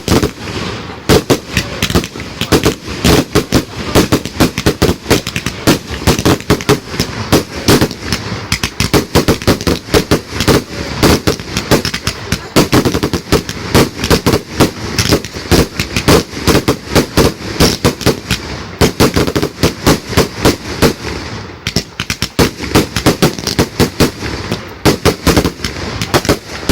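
A fireworks barrage going off in loud, rapid bangs, several a second with hardly a pause, like machine-gun fire.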